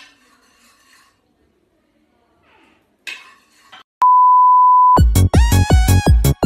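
Faint for the first few seconds, then a steady single-pitch test-tone beep of the kind played with TV colour bars, about a second long. It is cut off by loud electronic dance music with a strong bass beat.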